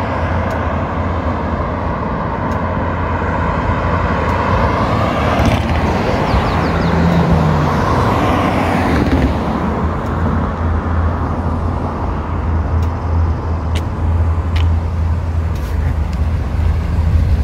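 Road traffic on a multi-lane street: vehicles passing over a steady low engine rumble, one swelling past about halfway through, as a Class C motorhome drives up and turns in.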